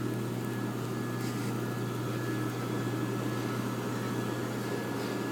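A steady low hum with a thin high tone and a faint hiss, unchanging throughout, with no distinct events.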